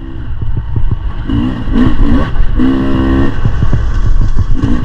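Beta 300 RR two-stroke dirt bike engine being ridden, its note rising and falling with the throttle several times, with short knocks and clatter in between.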